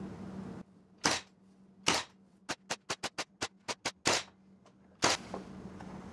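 A series of sharp clicks or taps: two single clicks, then a quick run of about eight, then two more.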